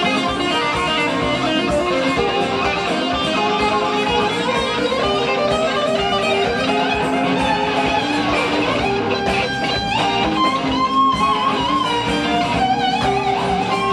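Live rock band: an electric guitar plays lead lines over drums and bass, with wavering vibrato on held high notes in the second half.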